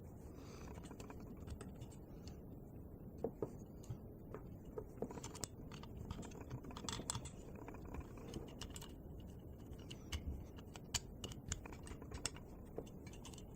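Faint, irregular light clicks and taps of small tools and metal engine parts being handled during the teardown of a model diesel engine, coming more often from about three seconds in.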